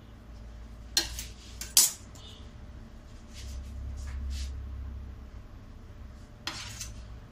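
Metal palette knife clinking and scraping against the cake turntable and frosting: two sharp clinks about a second in, softer scrapes with a low rumble midway, and another clink near the end.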